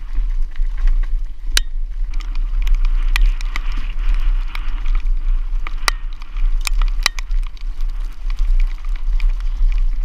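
A mountain bike descending a dirt trail, recorded from a camera on the bike: tyres running over loose dirt and gravel, with many sharp irregular rattles and clicks from the bike, over a steady low wind rumble on the microphone.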